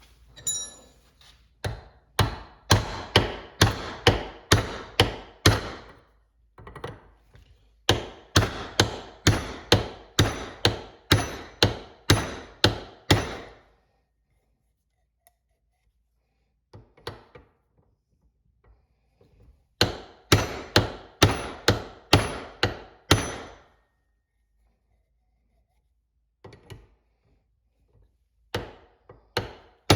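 Hammer blows on a bushing driver, pounding a new bushing into an automatic transmission part. The blows come in three runs of quick strikes, about two to three a second, with a few single blows in between; some strikes ring faintly.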